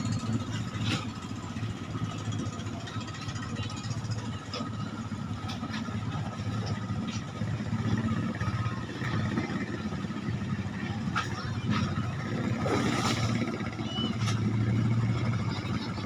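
Klotok motorboat engine running steadily with a low, even hum, and a few faint clicks over it.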